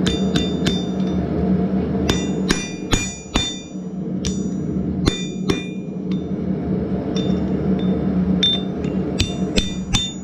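Hammer blows on a steel drift being driven through the hot eye of a forged spit prong on an anvil, each strike landing with a sharp metallic ring. The blows come in quick groups with short pauses and grow faster near the end as the square hole is opened out.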